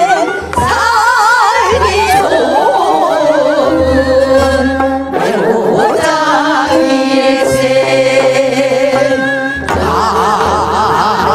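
A group of women singing a Korean folk song (minyo) together into microphones, the melody heavy with wavering vibrato. They sing over an amplified instrumental accompaniment with a low bass line and occasional sharp strokes.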